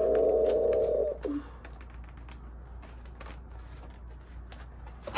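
Stiff card pages of a pop-up book being turned, the pop-up unfolding with a run of scattered crisp clicks and paper ticks. A held tone sounds for about the first second.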